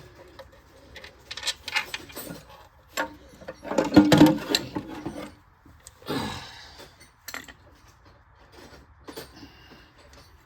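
Hand tools at work on a car: a ratchet and socket clicking and metal clinking in irregular knocks, with a louder flurry about four seconds in.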